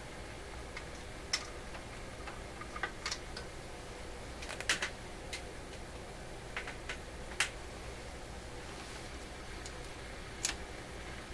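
About ten light, irregular clicks and taps from handling test equipment at a workbench, over a steady low hum.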